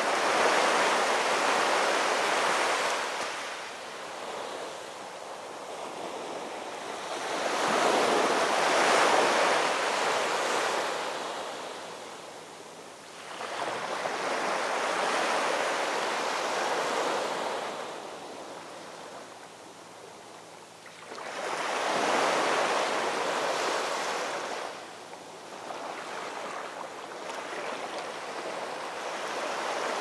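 Heavy storm surf breaking on a rocky shore: waves crash and wash back in a continuous rushing noise that swells and fades about four times, a big surge every six to eight seconds.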